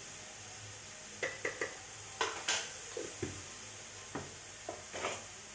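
Spoon clinking and tapping against a jar of red chilli powder while the powder is scooped out and sprinkled: a dozen irregular short clicks, starting about a second in, over a faint steady hiss.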